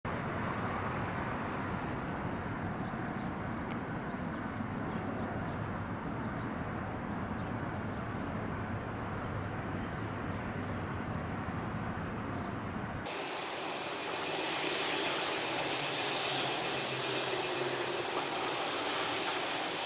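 Steady wind noise on the microphone in open country, a low rumbling rush; about 13 seconds in it changes abruptly to a brighter, thinner hiss.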